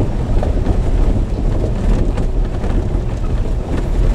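Car cabin noise while driving slowly on a gravel road: a steady low rumble of engine and tyres, with scattered faint crackles from the loose surface.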